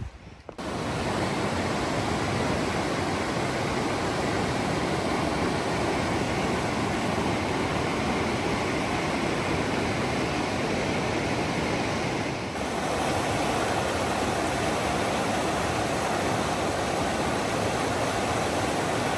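Fast-flowing river water rushing steadily, an even wash of noise with a brief dip and a slight change in tone about twelve seconds in.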